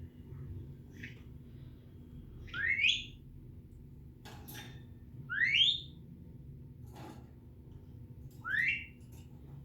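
African grey parrot whistling: three rising whistles about three seconds apart, each sweeping up in pitch over about half a second, with a few short clicks between them.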